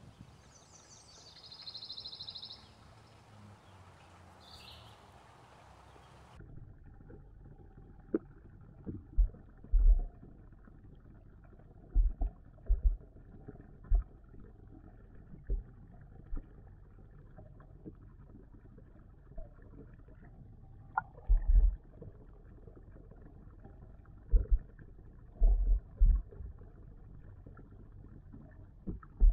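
Muffled underwater sound from a submerged camera in a garden pond: a low rumble with irregular, dull low thumps, over a dozen of them, some in quick pairs. Before that, a short high chirping bird call sounds over faint outdoor air.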